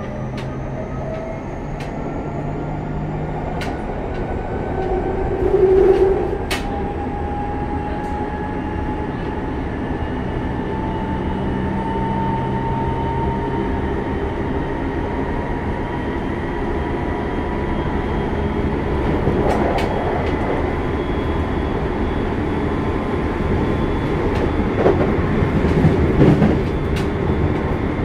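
Running sound inside a Toei 6300-series train with Mitsubishi GTO-VVVF inverter control: the inverter and traction-motor whine climbs in pitch as the train gathers speed, then holds steady. Under it runs the rumble of wheels on rail, with scattered clacks and a louder bump about six seconds in.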